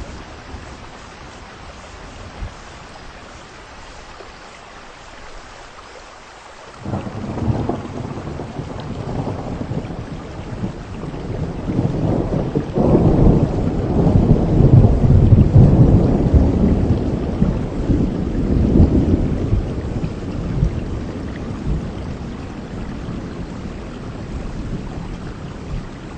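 Heavy rain falling steadily. About seven seconds in, a long roll of thunder breaks in, swells to its loudest around the middle and rumbles away over the following several seconds.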